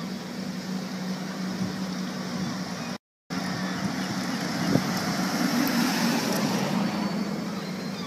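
A vehicle engine running with a steady low hum under a constant rushing of wind on the microphone. The sound cuts out for a moment about three seconds in, then carries on unchanged.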